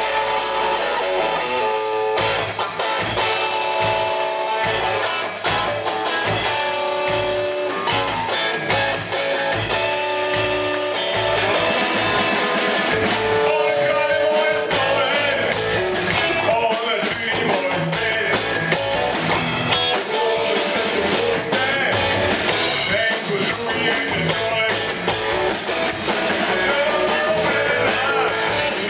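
Live rock band playing: electric guitar carrying a melody of held notes over bass guitar and drum kit.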